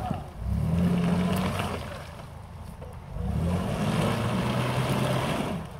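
Mitsubishi Pajero's engine revving twice under load as the 4x4 works to reverse out of a deep rut. Each rev rises in pitch and is then held: the first for about a second and a half, the second for over two seconds, with a lower idle-like lull between them.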